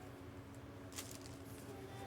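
Quiet handling of trading cards and their foil pack, with one short crisp rustle about a second in, over a faint steady hum.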